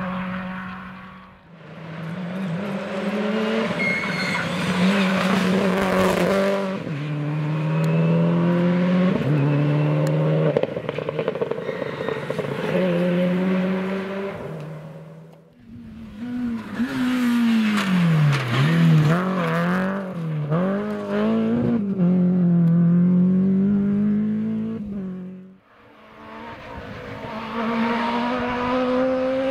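Rally cars at full throttle, one after another: each engine climbs through the gears, its pitch rising and then stepping down at each shift, swelling as the car passes and fading away. Brief gaps separate the cars, and another car's engine rises near the end.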